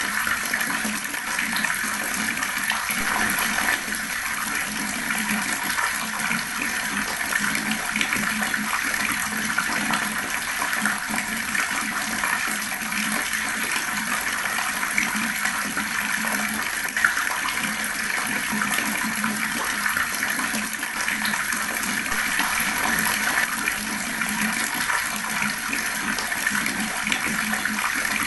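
Fast-flowing water pouring in a steady, unbroken rush.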